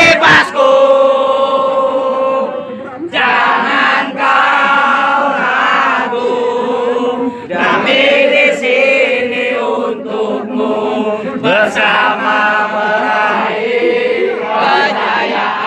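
A crowd of football ultras chanting and singing loudly in unison, in long sung phrases broken by short pauses.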